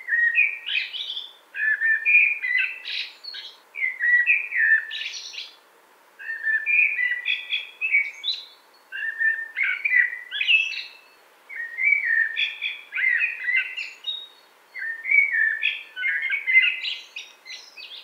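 Male common blackbird singing: a string of about eight warbled, fluting phrases, each a second or two long, separated by short pauses.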